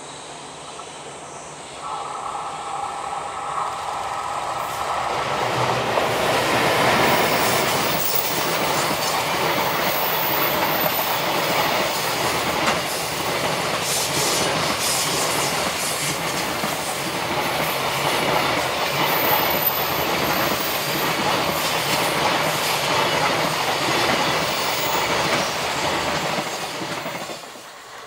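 EH500 electric locomotive and its long train of container wagons running past, the wheels rumbling and clattering over the rails. A steady high whine is heard for a few seconds as the locomotive approaches. The noise falls away quickly near the end as the last wagon passes.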